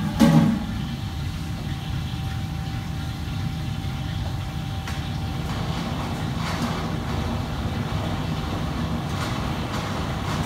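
Steady low mechanical hum of a working restaurant kitchen's equipment, with a loud clank of metal cookware just after the start and a few faint knocks later.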